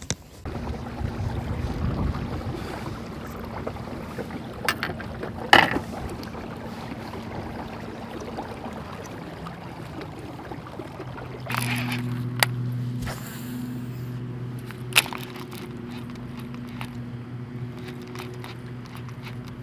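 Water sloshing around a kayak, with a few sharp knocks (the loudest about five and a half seconds in) and a low steady hum that gets stronger about two-thirds of the way through.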